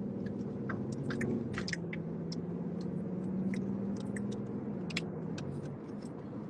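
A person chewing food close to the microphone, with irregular wet mouth clicks, over a steady low drone that dips slightly in pitch about two seconds in.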